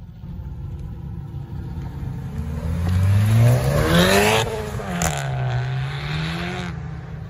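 Honda Civic Type R (FK2) with a turbocharged 2.0-litre four-cylinder accelerating hard past at close range. The engine note climbs to its loudest as the car goes by, drops, then climbs again as the car pulls away and fades.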